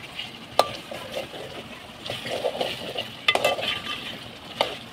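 Metal ladle stirring and scraping chicken curry in a metal pot as the masala is fried until the oil separates. The ladle clinks sharply against the pot about half a second in, again a little after three seconds, and near the end; the first clink is the loudest.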